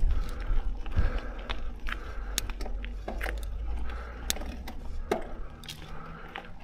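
Mountain bike rolling over rough ground: irregular sharp clicks and rattles from the bike's chain and parts, over a low wind rumble on the microphone.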